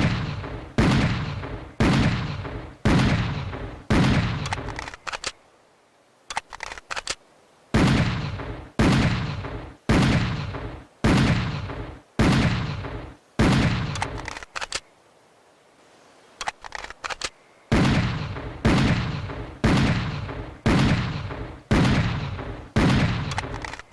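Schofield .45 revolver sound effect: shots fired about one second apart in strings of six, each shot followed by a long echoing tail. Short clicks sound in the pauses between the strings.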